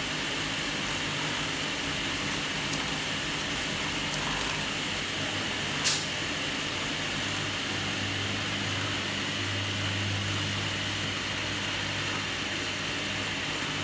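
Steady machine hum and hiss, its low hum dropping in pitch about seven seconds in, with one sharp click just before the six-second mark.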